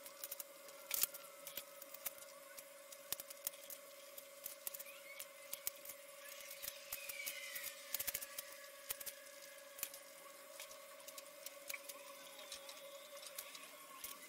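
Staedtler Noris graphite pencil sketching on paper: many light scratchy strokes and small taps of the lead, irregular throughout, over a steady faint hum.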